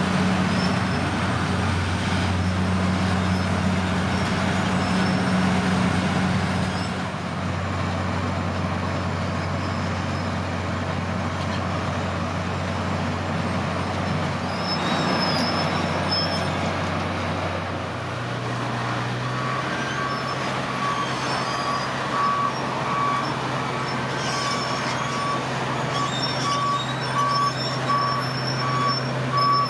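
Wirtgen W 250 road milling machine working alongside trucks, a steady heavy diesel drone over a dense rumble of machinery. About two-thirds of the way through the engine note shifts and a reversing alarm starts beeping at a steady, even rate.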